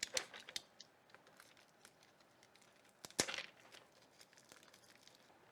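Packaging of a heat-shrink butt connector kit being opened by hand: a few short crinkles at first, then a brief tearing rustle about three seconds in, with quiet between.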